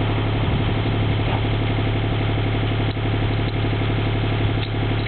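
Mini excavator's diesel engine idling steadily, with an even low hum.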